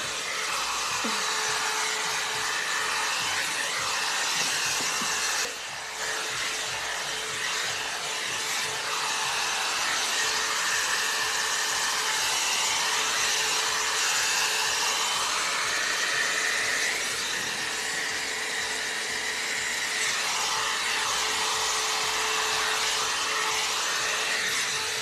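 Hot-air round blow brush running steadily: a constant whir of fan and rushing air with a steady hum underneath, dipping briefly about five and a half seconds in.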